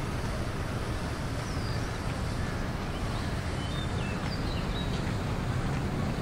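Steady low rumble of city traffic, with a few short bird chirps scattered through the middle.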